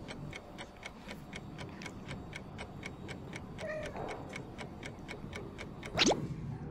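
Even, clock-like ticking at about four ticks a second. Near the end a loud whoosh sweeps down in pitch.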